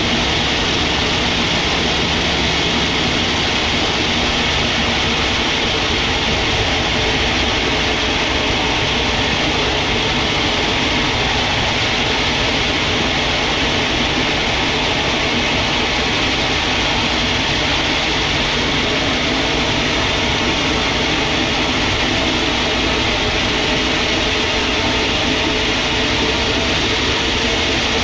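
Sawmill machinery running steadily: a loud, constant mechanical noise that never changes in level.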